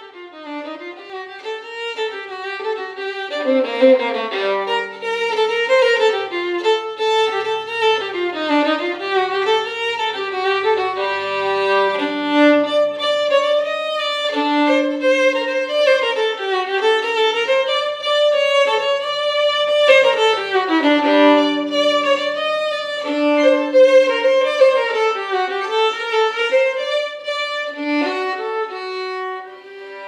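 Solo violin playing a flowing melody, with notes that slide up and down in pitch; it swells in over the first few seconds.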